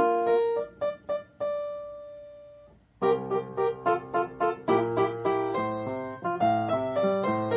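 Solo piano background music. One phrase ends on a held note that dies away almost to silence, then a new passage of quick running notes begins about three seconds in.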